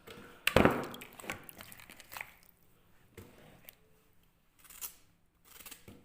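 Cut onion pieces dropped and handled into a blender jar: one loud clunk about half a second in, then a series of lighter knocks and rustles.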